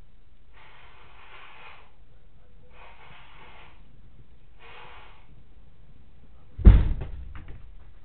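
A person blowing their nose three times, then a single loud bang about six and a half seconds in, heavy and low, dying away over about a second with a few smaller knocks after it; its cause is unknown.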